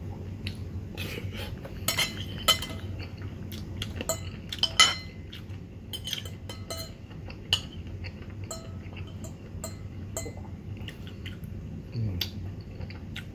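Metal spoon and fork scraping and clinking against a ceramic plate as the last of the noodles are gathered up. The clinks come irregularly, with the loudest cluster between about two and five seconds in.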